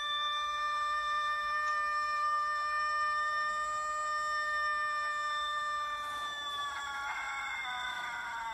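A recorded rooster crow played through a smartphone's speaker: one very long, drawn-out crow held on a nearly steady pitch that drops away near the end.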